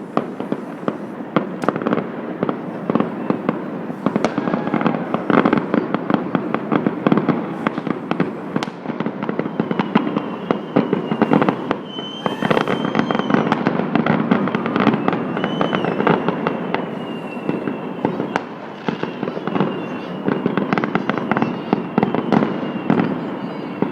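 Many fireworks going off at once: a dense, continuous crackle of bangs and pops, with high whistles coming in from about ten seconds in.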